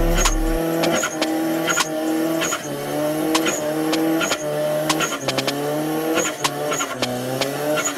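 Car doing a burnout: the tires squeal in several tones that shift every half-second or so, with short sharp cracks now and then.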